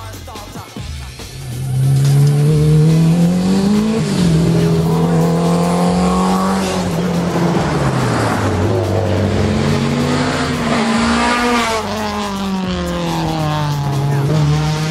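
Race car engine revving hard, starting about two seconds in, its pitch climbing and dropping several times as it accelerates, shifts gear and slows for bends.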